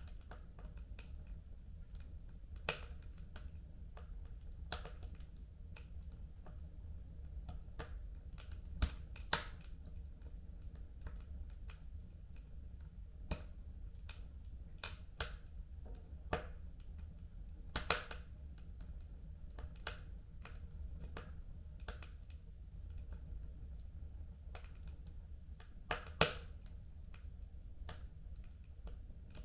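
Wood fire burning in a home fireplace: irregular crackles and sharp pops over a low steady rumble, with a few louder pops, the loudest one near the end.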